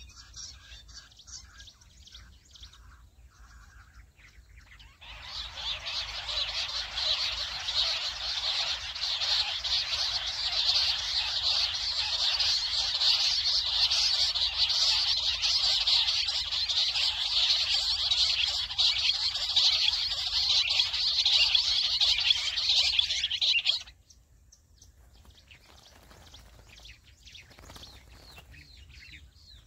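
A loud chorus of jungle bush quail calls, the lure sound played to draw quails into the traps. It starts about five seconds in and cuts off abruptly about five seconds before the end.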